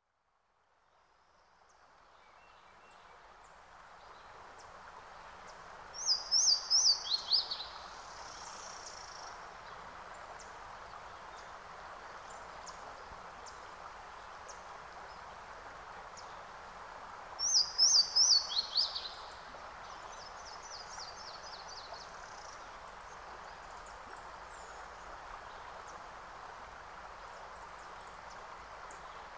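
A songbird sings a short phrase of quick notes that step down in pitch, twice about eleven seconds apart, each followed by fainter chirps. Under it runs a steady outdoor hiss that fades in from silence at the start.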